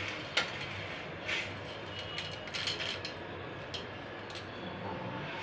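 Dry noodle sticks dropped by hand into a steel pot, giving a handful of sharp, light clicks and taps as they hit the rim and each other, over a steady hiss.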